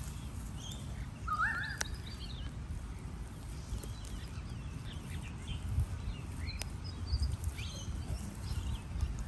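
Sulphur-crested cockatoos foraging in grass, with scattered short bird chirps and calls, including one rising call about a second and a half in, and a few sharp clicks, over a steady low rumble.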